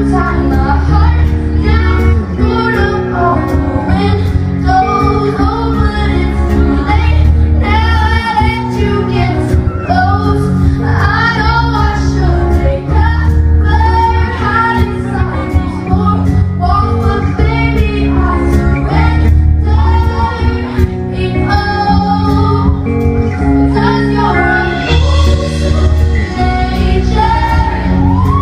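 A female singer singing a pop song live with a band: sung lead vocal over a steady beat with drums and bass, loud.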